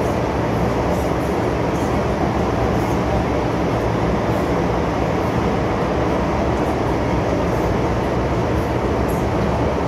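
MTR M-Train electric multiple unit running at steady speed through an underground tunnel, heard from inside the car at the doors: constant wheel-on-rail noise and car rumble, with no change in level.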